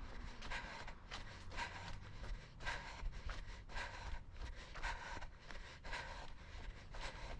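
A runner breathing hard in a steady rhythm, about two sharp breaths a second in time with the stride, over a low rumble of footfalls and movement.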